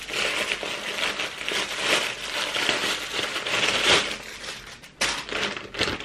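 Plastic parcel packaging, a black plastic postal mailer and a clear zip-lock bag, crinkling and rustling as it is handled and unwrapped by hand. The noise is irregular throughout and dips briefly before a sharp burst of crinkling about five seconds in.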